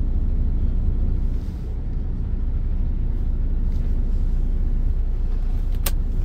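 Diesel engine of a MAN TGX 18.480 truck idling steadily, heard from inside the cab as a low, even rumble, with a single click near the end.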